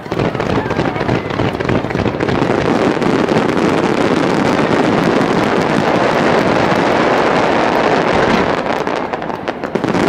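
Rapid-fire barrage of aerial firework shells, a digital starmine: dense, overlapping bangs and crackles that start suddenly and run on without a break.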